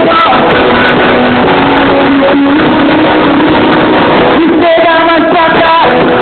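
Car sound system playing loud music with guitar and a singing voice.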